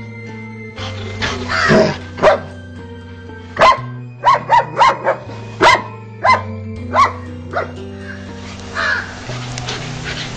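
A dog barking repeatedly while confronting a snake: about a dozen short, sharp barks, coming thickest around the middle. Low, sustained background music runs underneath.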